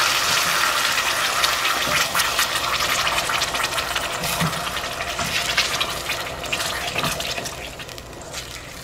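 Canned tomato sauce poured into hot oil and chili powder in a steel pot, sizzling and crackling, the sizzle slowly dying down as the sauce is stirred with a spatula.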